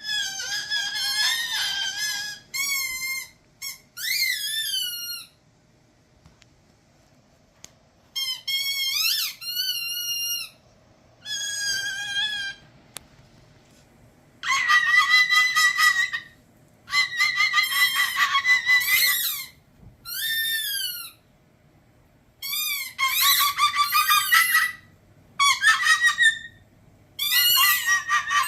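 Umbrella cockatoo repeating a taught 'annoying' noise: a high, wavering squeal in about ten bursts of one to three seconds, with short pauses between.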